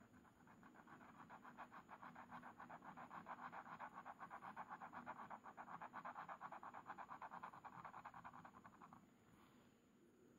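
Glass pen nib scratching rapidly back and forth on a paper swatch card as ink is scribbled in to fill a swatch. The faint, even strokes stop about nine seconds in.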